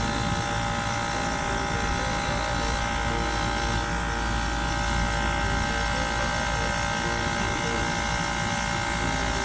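Steady machinery running: a constant low hum with several steady whining tones over it, unchanging throughout.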